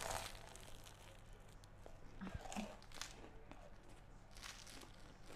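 Flaky croissant crust crunching as it is bitten into, then faint crackling and tearing as the croissant is pulled open.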